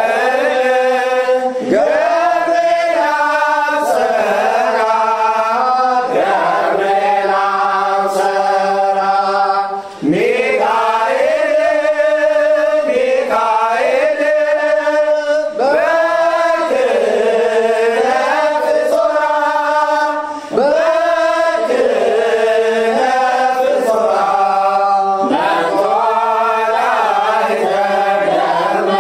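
Ethiopian Orthodox mezmur to St. Gabriel: voices chanting a hymn in long held phrases, with short breaks between phrases about ten and twenty seconds in.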